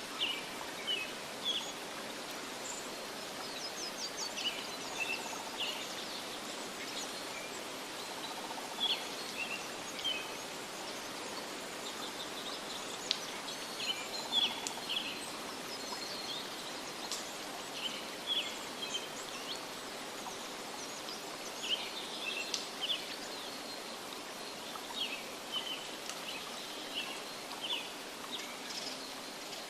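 Birds chirping in short, scattered calls over a steady rushing background noise.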